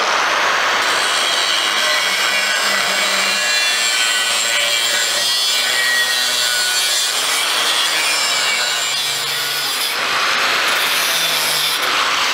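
Angle grinder cutting through a steel exhaust downpipe, a continuous grinding rasp. The cut eases briefly about ten seconds in, then bites again.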